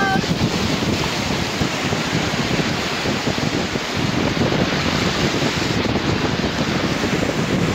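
Rushing river water around a rafting boat, a steady loud wash of noise, with wind buffeting the microphone.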